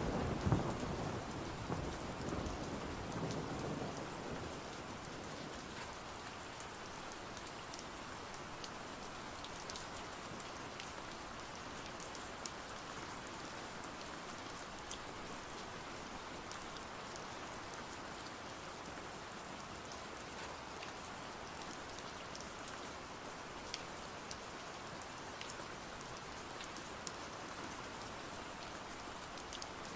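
Steady rain falling on a surface, with scattered sharp drip ticks. A roll of thunder rumbles low and dies away over the first few seconds.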